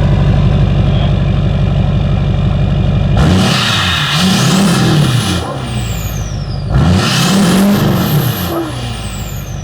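LBZ Duramax 6.6 L V8 turbo-diesel, fitted with a new downpipe, idling steadily and then revved twice, the engine note rising and falling each time. A high turbo whistle falls away after each rev.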